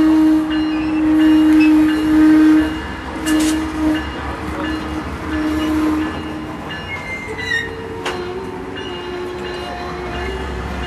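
Diesel locomotive horn sounding one long steady blast, then a few shorter ones, over the low rumble of the diesel engines. A brief high wheel squeal rises about seven seconds in.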